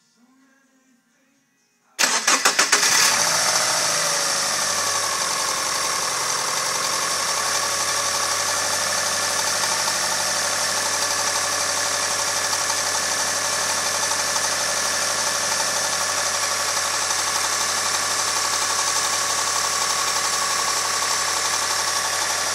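Subaru Impreza 2.5TS flat-four engine cranking briefly and catching about two seconds in. The revs settle over the next couple of seconds into a steady idle, without the start-up rattle heard on the first start.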